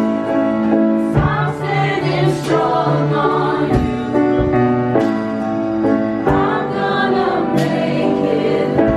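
Background music: voices singing together in a choir-like blend over sustained chords, with a beat about every second and a quarter.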